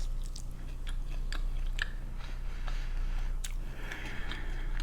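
Close-up chewing and biting into chicken wings, with scattered short wet clicks and smacks of the mouth.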